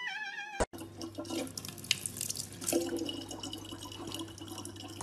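A thin stream of water from a gooseneck tap running into a large plastic water jug, over a low steady hum. A cat's meow ends abruptly about half a second in.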